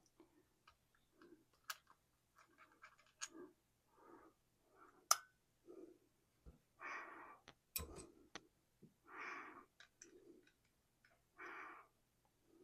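Faint, slow breathing in and out, with a few sharp metallic clicks scattered through it, the loudest about halfway.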